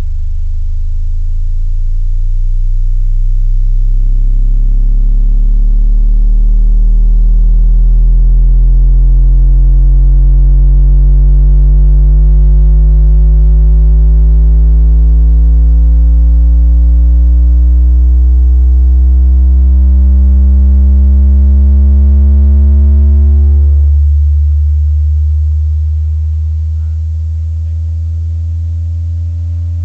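Alpine Type-R 12-inch car subwoofers playing a very loud bass test tone for a resonance test, with steady deep bass beneath a set of slowly rising overtones. About 24 seconds in the upper tones fall away and the level drops.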